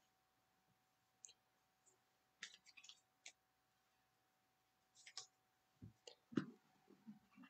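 Baseball cards being handled and shuffled by hand: a scatter of faint clicks and soft taps of card stock, with the loudest tap near the end.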